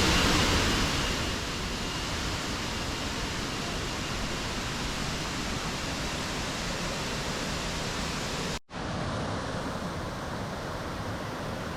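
Steady rush of falling water from a forest waterfall, with a brief dropout about two-thirds of the way through.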